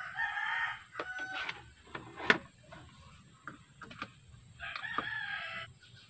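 A rooster crowing twice, each crow about a second long and about five seconds apart, with a few light clicks and one sharp tap between them.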